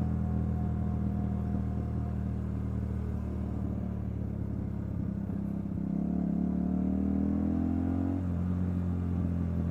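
Motorcycle engine running under way, its note rising as it speeds up about six seconds in, then dropping back sharply about two seconds later as the throttle is eased or a gear changed.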